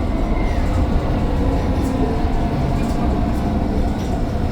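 Mercedes-Benz Citaro O530 bus on the move: a steady, loud low rumble of engine and running gear.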